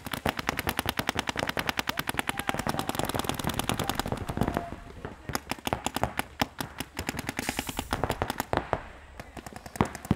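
Paintball markers firing in rapid strings of shots, about a dozen a second, thinning to scattered single shots near the end.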